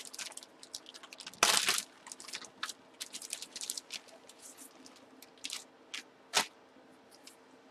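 Plastic packaging bags crinkling and rustling as they are handled: a string of short crackles, with a longer, louder crinkle about a second and a half in and a sharp one near the end.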